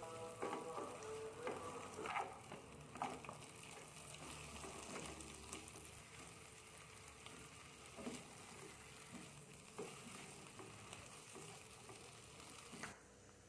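Vegetables sizzling as they fry in a pan, with a few short knocks of a spatula as they are stirred. The sizzle stops abruptly near the end.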